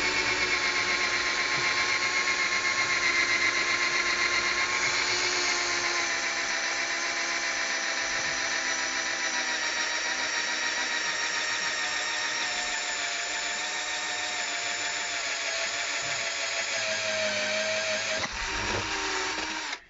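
Cordless drill running under load as it cuts a hole through the wall of a plastic water tank for a ball valve. It is a steady, loud whine that shifts slightly in pitch, slows near the end and then stops.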